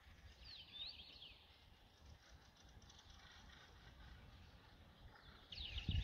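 Faint songbird song in two short bursts of quick, sweeping high notes, about half a second in and again near the end, over quiet outdoor hiss. A low rumble sets in near the end.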